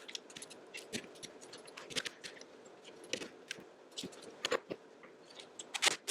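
Irregular light metallic clicks and clinks of hand tools and small engine parts being handled while VVT-i solenoids are removed from the camshaft carrier.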